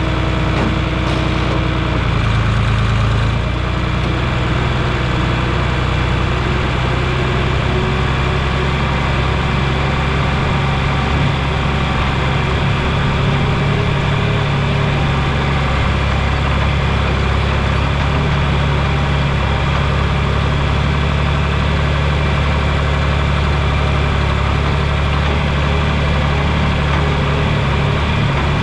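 Large engine running steadily at a constant speed, such as farm machinery or a truck engine, with a slight shift in its tone about two seconds in.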